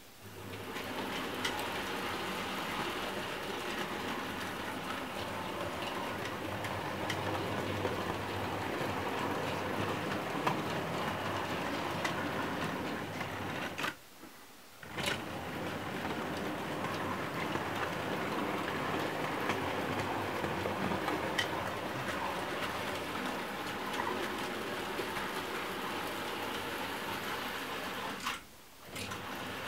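Bachmann OO gauge model goods train hauled by a Southern N class locomotive running round the layout: a steady whir from the small motor with a rattling clatter of wheels on the rails and scattered faint clicks. The sound drops away briefly twice, about halfway through and near the end.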